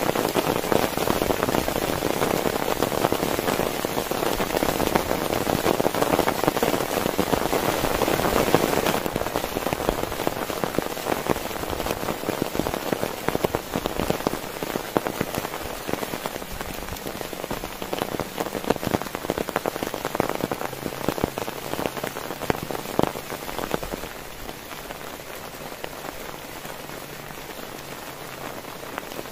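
Heavy rain pattering on a tent, a dense hiss of many separate drops. It is heaviest for about the first nine seconds, then eases, and lightens again near the end.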